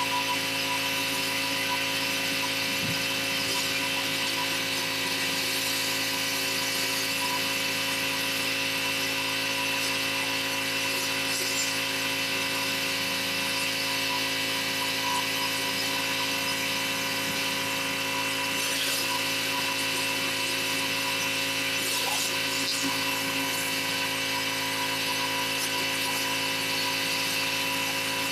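Pressure washer running steadily at a constant pitch, with the hiss of its rotary surface cleaner spraying across stone pavers.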